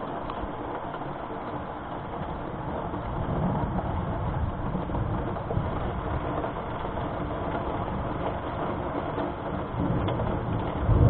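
Steady rain with distant thunder rumbling low, swelling about three seconds in and again, louder, near the end.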